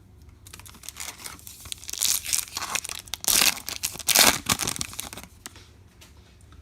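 Trading-card pack wrapper being torn open and crinkled: uneven crackling from about half a second in, loudest in two bursts near the middle, stopping about a second before the end.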